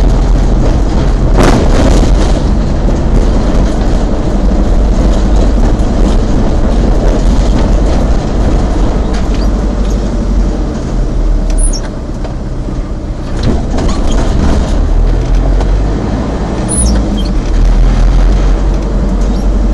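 Car engine and tyre noise heard from inside a moving car: a steady low rumble with a couple of brief knocks or bumps along the way.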